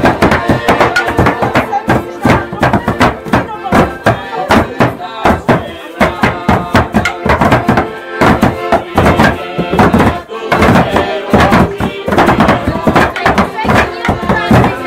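A fast, uneven run of knocks and clatters, several a second, mixed with music and voices.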